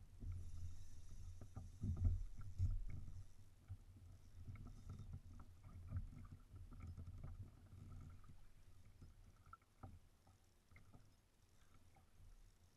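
Small waves slapping and sloshing against a plastic kayak hull, with a low rumble that is strongest in the first few seconds and scattered light clicks and knocks.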